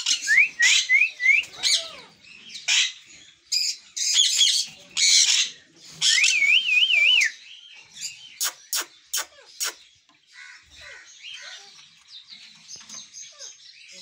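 Pet sun conures calling: bursts of harsh, high screeches with short rising whistled notes near the start and a wavering whistle about six seconds in. A quick run of sharp clicks follows around eight to ten seconds, then softer chatter.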